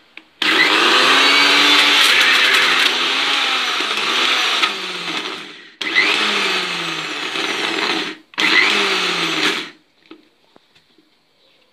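Kitchen mixer grinder (mixie) running in three pulses, a long one of about five seconds and then two short ones, grinding ground peanuts with a pinch of salt and sugar into a smooth peanut butter paste.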